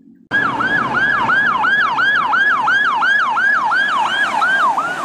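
Electronic siren of an emergency rescue truck sounding a fast yelp: about three sweeps a second, each jumping up quickly and falling back, over road noise. It cuts in suddenly just after the start.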